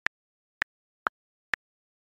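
iOS on-screen keyboard key clicks as four keys are tapped about half a second apart; the third click is a little lower in pitch than the others.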